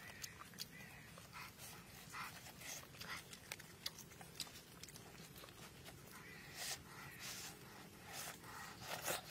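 Close-up chewing and lip-smacking while eating cooked frog by hand: short, irregular wet smacks and clicks throughout.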